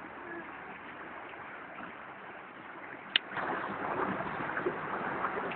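Floodwater rushing as a steady noise, which grows louder after a single sharp click a little over three seconds in.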